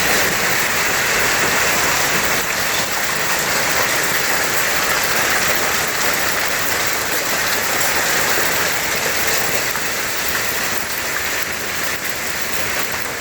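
Hailstorm: marble-sized hail and heavy rain pelting down, a dense steady hiss of countless small impacts that eases slightly near the end.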